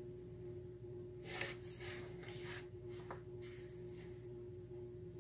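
Paper pages of a spiral-bound sketchbook being flipped and fanned by hand: soft rustles of paper about a second in and again a little later, with a light tap near three seconds, over a faint steady hum.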